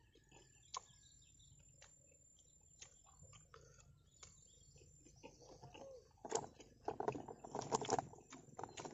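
Faint outdoor ambience with scattered bird chirps, then about six seconds in, two seconds of loud rustling and crackling close to the microphone: handling noise as the snack eater leans in toward the camera, likely the small plastic sauce bag in his hand.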